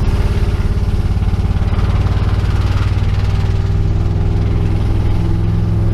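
Ford F-150's 5.0-litre V8 pulling under throttle, heard from inside the cab. Its note rises at the start and then holds steady and deep.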